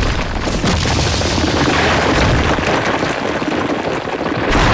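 Cartoon explosion-type sound effect for a blast attack: a loud, continuous rumbling roar with a deep low boom that swells again near the end.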